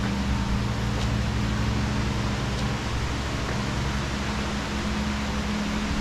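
Steady whoosh of air-handling machinery such as ventilation fans, with a low, even hum.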